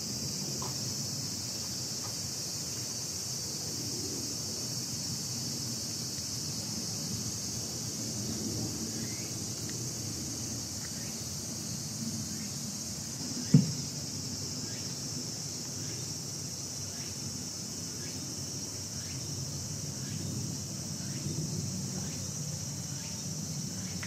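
Steady high-pitched drone of a summer insect chorus. A low background murmur runs under it, and there is a single loud thump about halfway through.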